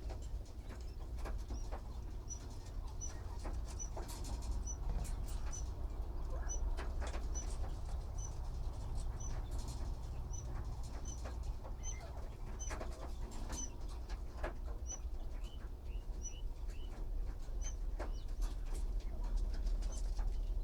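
Newborn bird chick peeping: short, high, evenly spaced cheeps about one every 0.7 seconds, which drop lower in pitch about two-thirds of the way through. Scattered clicks and a low steady rumble underneath.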